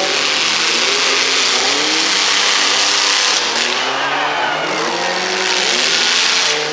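Engines of several demolition-derby mini pickup trucks revving up and down, their pitch rising and falling again and again over a dense steady noise.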